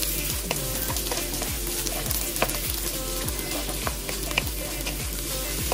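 Sliced pork and red onions sizzling in a nonstick wok while being stirred with a wooden spoon. The spoon clicks now and then against the pan.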